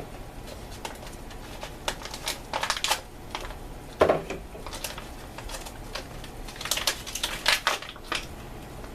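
Plastic MRE food pouches crinkling and clicking as they are handled, in short irregular bursts, with one sharper knock about four seconds in.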